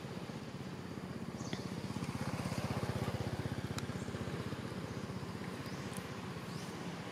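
A motor engine running with a fast, even pulse, swelling to its loudest about three seconds in and then easing off. A few faint short high chirps sound over it.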